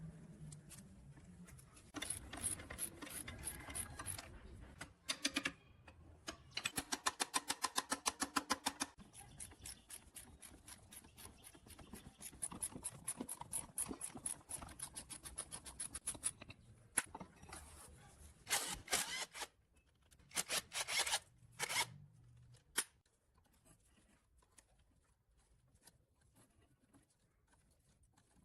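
Workshop tool noises from mechanical repair work: a stretch of scraping, then a long run of rapid, evenly spaced clicks, then two short hissing bursts.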